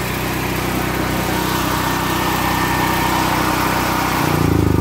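Portable 5000-watt gasoline generator running steadily, then switched off about four seconds in, its engine winding down in slowing chugs.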